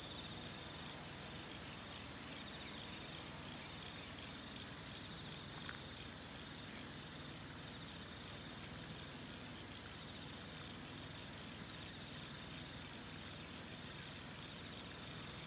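Faint rural outdoor ambience: a steady high-pitched chirring chorus over a low even hiss, with one soft click about six seconds in.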